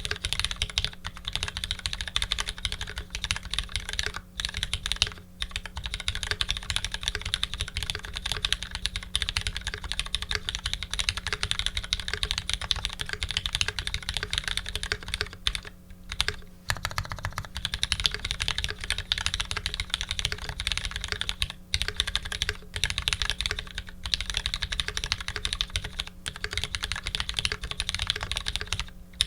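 Continuous fast typing on a custom 65% mechanical keyboard with lubed linear Retooled Black switches, GMK doubleshot keycaps and an aluminium plate, with brief pauses about four, five, sixteen and twenty-two seconds in.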